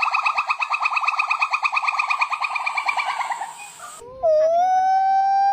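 Gibbon calls. First a fast, trilling call of about ten pulses a second fades away over the first three seconds or so. Then, after a short break, comes a long, clear, steady note that sweeps sharply upward at its end.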